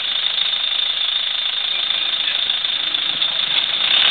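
Vehicle engine running with a steady, harsh rattle that grows a little louder near the end.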